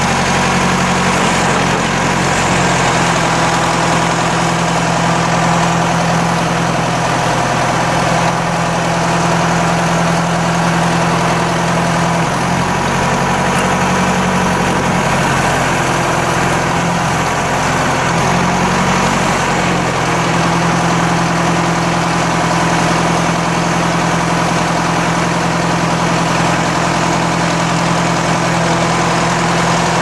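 John Deere 500C backhoe's engine running steadily while the backhoe boom and bucket are worked hydraulically; for several seconds in the middle the engine note shifts and wavers under the hydraulic load, then settles again.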